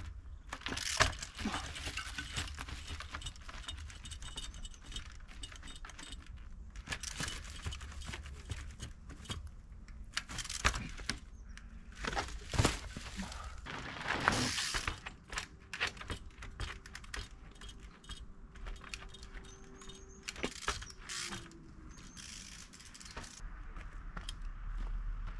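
Trials bike riding on rock: irregular clicking of the freewheel ratchet, chain and frame rattling, and sharp knocks and scrapes of the tyres and bike on stone. The loudest knocks come about one, eleven, twelve and a half, and fourteen and a half seconds in.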